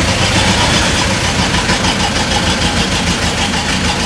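Combine harvester's diesel engine idling steadily with a fast, even clatter, just after starting.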